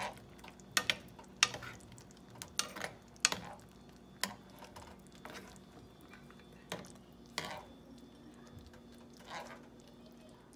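Metal spoon stirring through thick sauce in a coated frying pan, clinking and scraping against the pan about a dozen times at irregular intervals.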